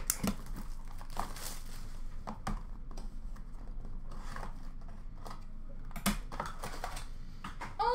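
Hands rummaging through cardboard trading-card boxes and packs in a plastic bin, with scattered clicks, knocks and rustling and a cluster of sharper knocks about six seconds in.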